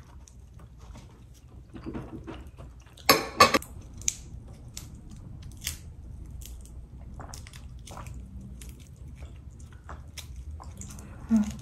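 A person eating grilled shrimp: chewing and crunching with scattered sharp clicks, and a louder crackling clatter about three seconds in.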